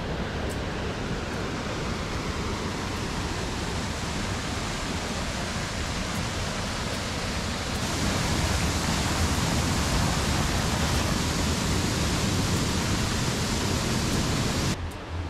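Steady rush of running water, louder from about eight seconds in and stopping abruptly near the end.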